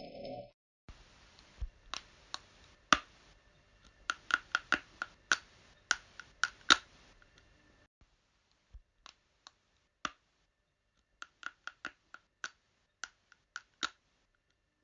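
A series of sharp, irregular clicks or snaps, at times several a second in quick clusters, over a faint hiss that drops away about eight seconds in, leaving the clicks in silence.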